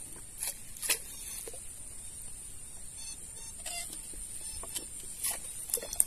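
Wooden paddle knocking lightly against the hull of a wooden canoe while paddling: a few separate sharp knocks, two near the start and three near the end, over a faint steady high hiss.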